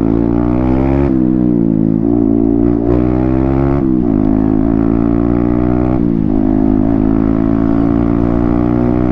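Yamaha MT-15's 155 cc single-cylinder engine running with its exhaust cut off, open and loud, while being ridden. Its pitch climbs and drops sharply several times as the rider accelerates and shifts.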